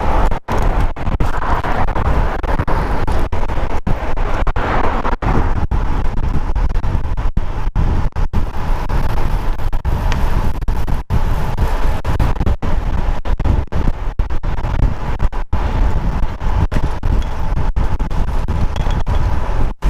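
Wind rushing over a helmet-mounted action camera's microphone on a moving road bike: a steady low rumble broken by many brief dropouts.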